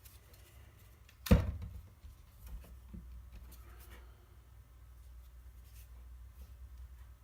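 A hard object knocking sharply against a work surface about a second in, then a few lighter clicks and taps of parts being handled, over a steady low hum.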